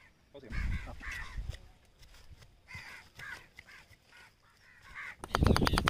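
A crow cawing several times in a loose series of short harsh calls. Near the end a much louder run of quick sharp knocks cuts in.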